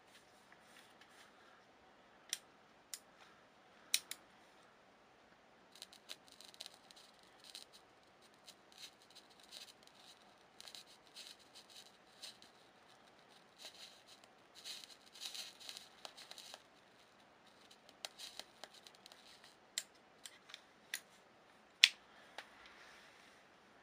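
Faint irregular crackling and popping of steel bolts being melted and welded together by a laser beam, spatter spitting off the molten joint, with scattered sharp clicks before and after, the loudest near the end.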